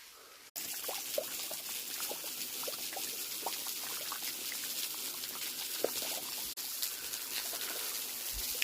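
Low-flow canyon waterfall running at a trickle: a steady patter of falling water with scattered small drips and plops into the pool below. It cuts in suddenly about half a second in.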